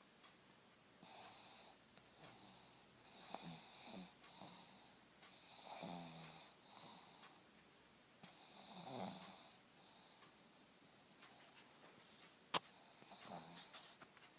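Pug snoring while awake: a series of faint, wheezy snoring breaths, each about a second long with short gaps between. There is one sharp click a little past the middle.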